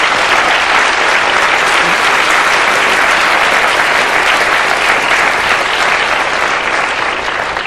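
A large audience applauding: dense, steady clapping that eases off slightly near the end.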